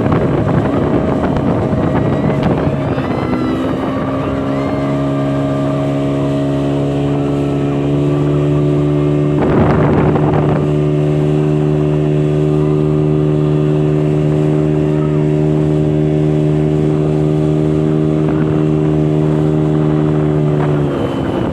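Motorboat engine running at a steady pitch. The note shifts a few seconds in and sags near the end as the boat slows. About ten seconds in there is a short rush of noise.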